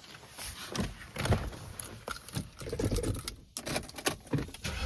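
Scattered light clicks and rustling handling noises, with a cluster of sharp clicks near the end; no engine is running yet.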